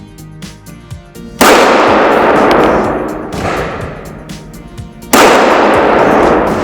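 Two 9mm pistol shots from a Glock 45 firing PMC 115 gr FMJ, a bit under four seconds apart, each a sharp crack followed by a long echoing decay.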